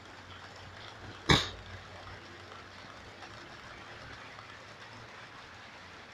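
Steady faint rolling hiss of a model freight train running on a model railway layout, broken about a second in by one loud, sudden sharp sound.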